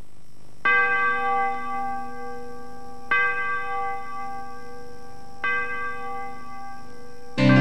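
A bell tolls three times, about two and a half seconds apart, each stroke ringing on until the next. Just before the end, music comes in loudly.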